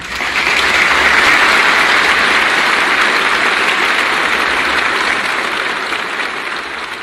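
Audience applauding, starting suddenly and slowly dying away toward the end.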